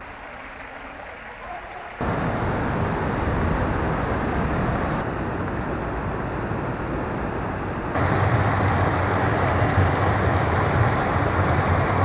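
Water rushing steadily over a small stone weir at the spring source of the Genal river. It is quieter for the first two seconds, louder from about two seconds in, and louder again from about eight seconds in.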